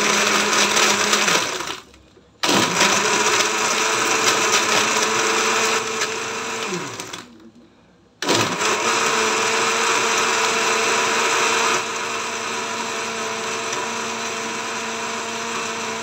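Countertop blender crushing ice with mango and milk, run in three goes: its motor hum stops about two seconds in, restarts half a second later at a higher pitch, winds down with a falling whine around seven seconds, and starts again about a second later. From about twelve seconds it runs a little quieter and keeps going to the end.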